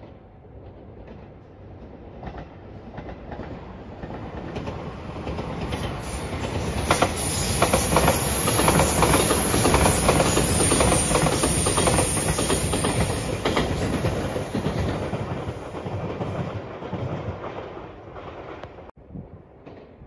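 A JR Shikoku 8000 series Shiokaze limited express electric train in Anpanman livery passes at speed. It grows louder to a peak about halfway through, with wheels clattering over rail joints and a high hiss, then fades away.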